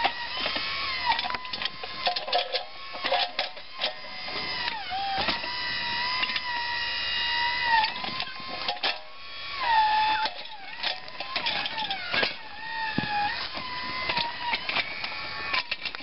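Electric motor and hydraulic pump of a battery-powered backhoe running with a steady high whine that dips in pitch several times, with short clicks and knocks as the bucket digs into dirt.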